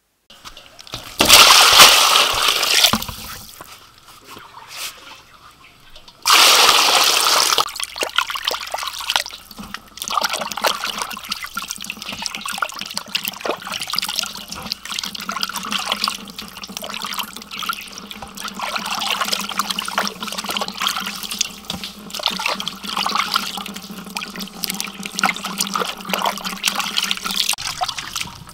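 Water splashing and sloshing as raw chicken wings are washed by hand in a basin of water, with two loud gushes of water in the first several seconds.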